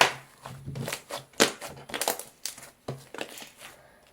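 Slime being squeezed and poked by hand: an irregular run of short, wet crackling squishes and pops, several a second, dying away near the end.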